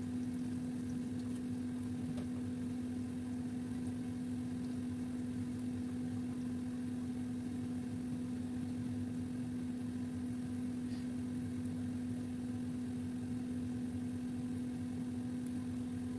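Microwave oven running with a steady hum; near the end it stops with a click and a short high beep, and its fan motor winds down in a falling tone.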